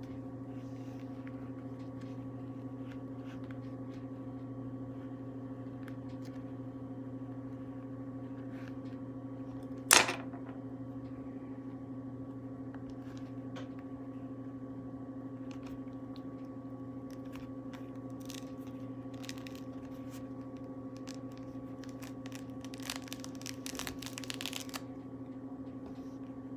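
Faint scratching and tearing of a knife scoring and pulling away thick grapefruit peel, heaviest a few seconds before the end. One sharp knock about ten seconds in, and a steady electrical hum throughout.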